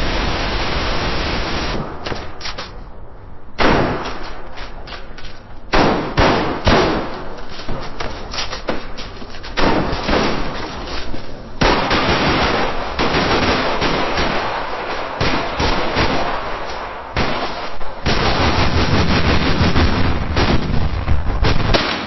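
Battlefield gunfire sound effect: dense, continuous volleys of many overlapping gunshots, with a few short lulls and a heavier stretch near the end.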